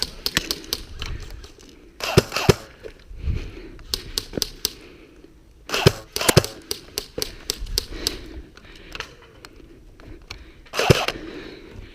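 Airsoft replica guns firing: scattered sharp pops and clicks, with louder clusters of shots about two, six and eleven seconds in.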